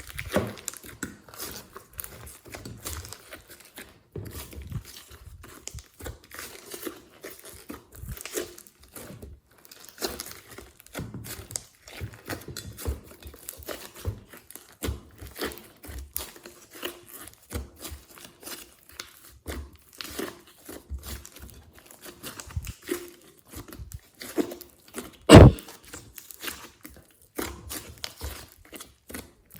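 Glossy slime being kneaded and stretched by hand with clay and foam mixed in: a continual run of small sticky clicks and crackles, with one much louder pop about 25 seconds in.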